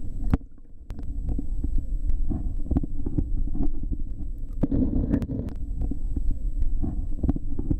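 Muffled low rumble of stream water heard through a camera held underwater, with irregular clicks and knocks throughout.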